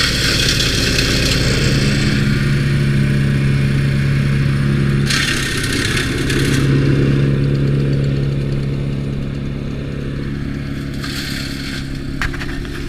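Timber Wolf TW13/75G wood chipper's engine running steadily, with three spells of harsh chipping noise as material is fed through the blades: in the first two seconds, about five seconds in, and about eleven seconds in. The engine note dips briefly under the load of the second spell. A few sharp clicks come near the end.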